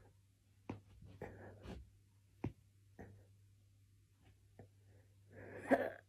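A few short, sharp cracks and pops from a woman's back as it is pressed down, the sharpest about two and a half seconds in. Breathy exhales come with them, the loudest near the end.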